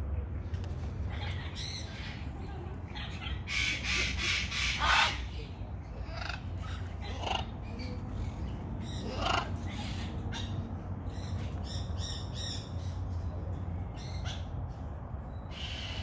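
Parrots squawking in the aviaries: harsh calls here and there, the loudest a quick run of squawks about four seconds in, over a steady low rumble.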